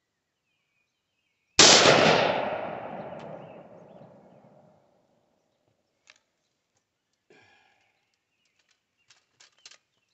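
A single rifle shot from a DB15 AR-15 with an 18-inch stainless .223 Wylde barrel, about a second and a half in, with a long echoing tail that fades over about three seconds. A few light clicks and handling sounds follow near the end.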